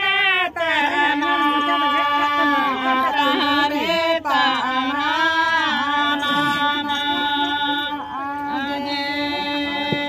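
Women singing a chant-like song in long, drawn-out held notes, each bending and sliding in pitch at its end, with short breaths between phrases.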